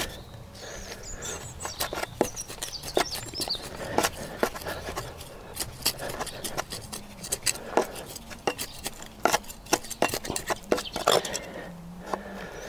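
A garden trowel scraping and digging in gritty soil, with irregular small clinks and scrapes as plants are set in. A bird calls briefly, in a falling line, between about one and three seconds in.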